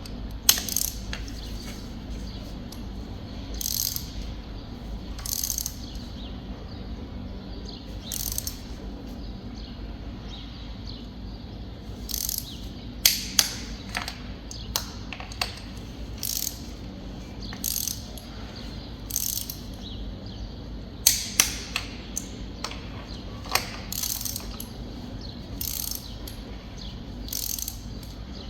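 Ratchet wrench clicking in short, irregular bursts while spark plugs are tightened down, with several sharp metallic clicks among them.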